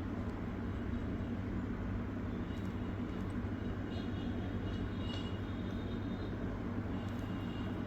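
Steady low background hum, with faint light metallic ticks and scrapes from a screwdriver and a tiny M.2 retaining screw, the small screw not holding on the magnetised tip.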